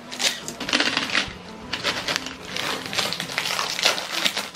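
Crisp, irregular crunching and crackling of crunchy snack food being eaten close to the microphone, a few crunches a second.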